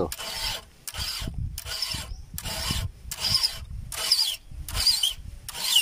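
Round file rasping across a steel chainsaw chain cutter in a regular series of strokes, a little faster than one a second: the chain being sharpened by hand.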